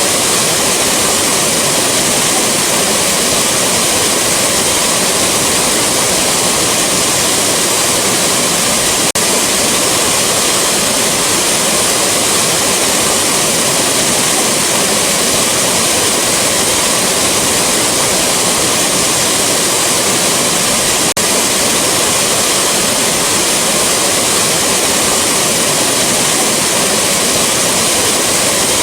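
Rushing waterfall: a steady, loud rush of falling water.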